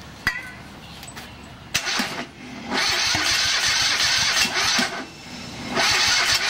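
Electric starter cranking a small engine, turned over by the key switch in two bursts with a short pause between.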